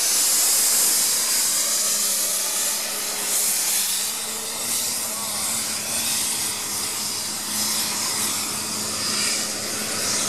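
Diesel pulling tractor's engine running at full throttle under load as it drags the sled, heard as a steady, loud, hissing noise. A high whine rises at the start.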